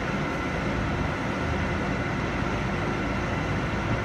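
Engine running steadily, with a thin constant whine above its low rumble.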